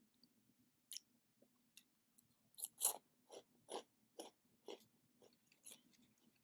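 A person chewing crunchy food close to the microphone, with a single click about a second in, then a steady run of crisp crunches about two a second from about two and a half seconds in.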